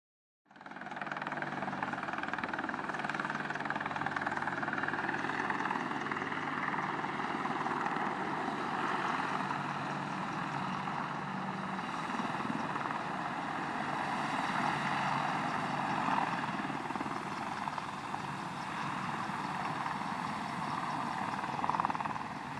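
Apache attack helicopter running steadily: a constant turbine and rotor noise that starts suddenly about half a second in.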